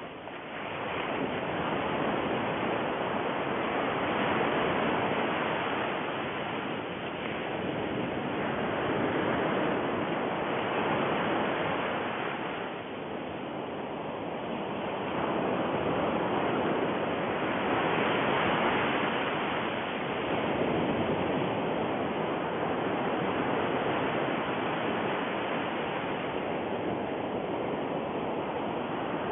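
Steady rushing noise like surf, swelling and easing every few seconds.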